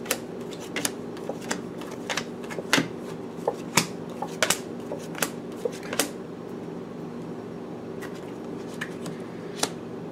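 Tarot cards being shuffled and handled by hand: irregular sharp taps and flicks, many in the first six seconds and only a few after, over a steady low hum.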